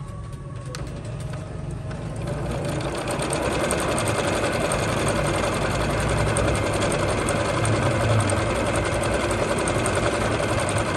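Jaguar CD-2204W electronic sewing machine sewing a decorative stitch pattern, its needle ticking rapidly over the motor's hum. It picks up over the first two seconds or so, then runs fast and steady.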